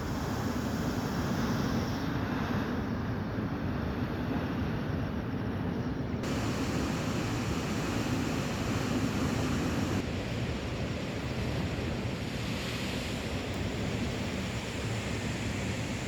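Sea surf with wind rushing on the microphone, a steady noise with no distinct events. Its higher part changes abruptly a few times.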